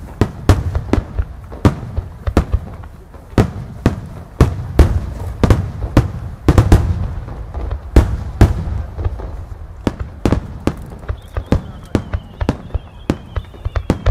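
Aerial firework shells from a rapid-fire starmine barrage bursting in quick, irregular succession: loud sharp bangs, often several a second, over a continuous low rumble.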